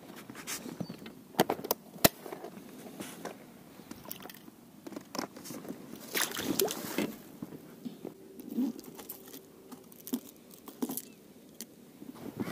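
Handling noise as a small pike is landed into an inflatable PVC boat on a spinning rod: scattered sharp clicks and knocks of rod and tackle against the boat, the loudest two about one and a half and two seconds in, and a longer scuffling noise around six seconds in.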